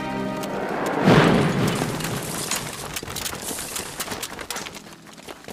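Battle sound effects: a heavy explosion boom about a second in, followed by scattered gunshots that grow fainter.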